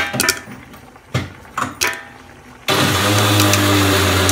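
A few last popcorn kernels popping in a covered steel pot, sparse sharp clicks. About two and a half seconds in, a loud steady mechanical hum with hiss starts abruptly.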